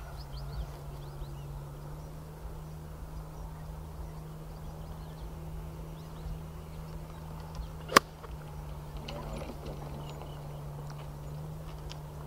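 A golf club striking a ball once, a single sharp crack about eight seconds in, over a steady low hum and faint bird chirps.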